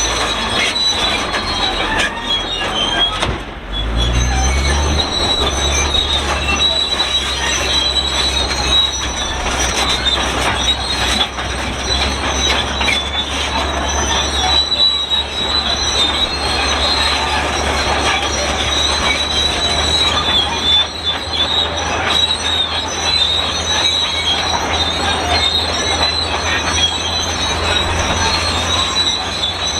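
Shantui SD32 crawler bulldozer squeaking loudly and continuously as it works, a shrill metal-on-metal squeal over the steady low run of its diesel engine, which picks up about four seconds in. The squeak sounds like an unlubricated cart, the sign of an old, dry-running machine.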